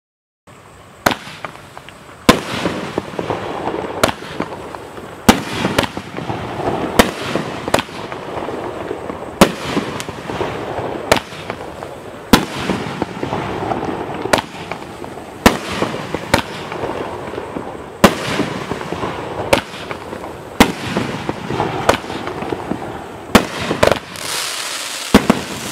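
A T-Sky Feasting Fury 12-shot 500-gram aerial firework cake firing: sharp launch and burst bangs every one to two seconds, with a continuous noisy crackling wash between them.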